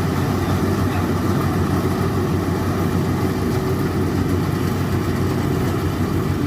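Yanmar AW82V combine harvester's diesel engine running steadily.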